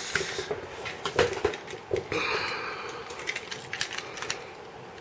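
Hard plastic Plarail toy locomotives being handled: scattered clicks and light taps of plastic on plastic, with a brief scrape about two seconds in.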